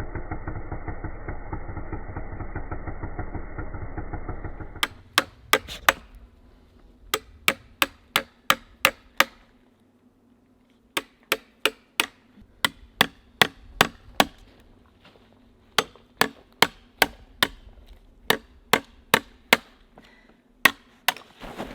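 An engine runs steadily for the first few seconds and cuts off abruptly. Then a hammer strikes sharply in quick runs of about three blows a second, with short pauses between the runs.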